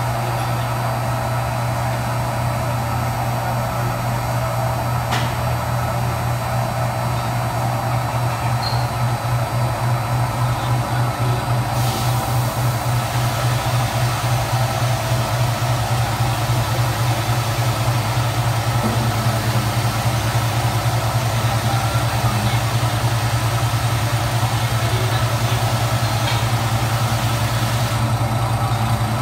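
Threading machine running as it cuts threads in a neck ring: a steady motor hum that takes on a fast pulsing about nine seconds in. A higher hiss joins about twelve seconds in and stops shortly before the end.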